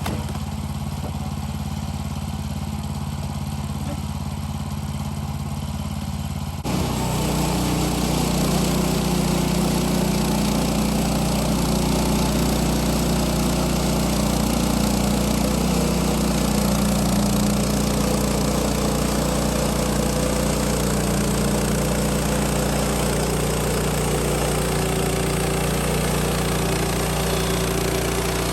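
Sawmill engine idling steadily, then stepping up about a quarter of the way in to a louder, steady run at higher speed that carries on to the end.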